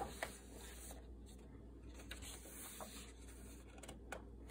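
A thick page of a coloring book being turned by hand, with a soft paper rustle in the first second, then a few faint light ticks of paper and fingers.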